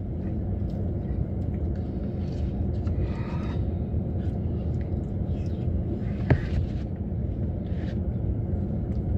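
Steady low rumble inside a parked vehicle's cabin, with faint eating noises from plastic forks and a single sharp click a little past six seconds in.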